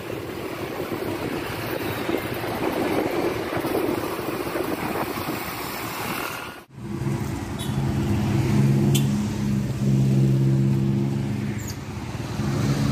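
Wind rushing over the microphone with motorcycle engine noise while riding. The sound cuts out abruptly about two-thirds through, then gives way to a steady engine hum at a fixed pitch: motorcycles idling at a roadside stop.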